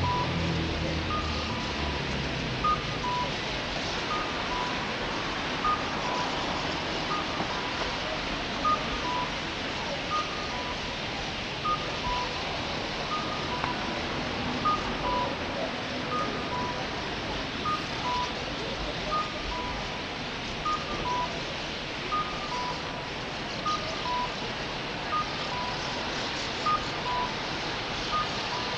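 An electronic signal beeping in two alternating pitches, a higher and a lower short beep taking turns about every three quarters of a second, over a steady dense din.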